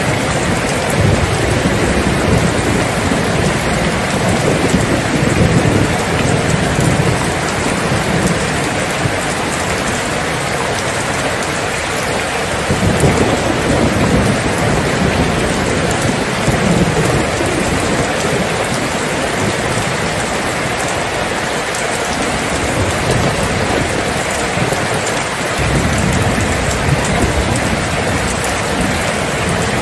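Steady heavy rain, with low thunder rumbling on and off: longest over the first several seconds, again about halfway through, and from a few seconds before the end.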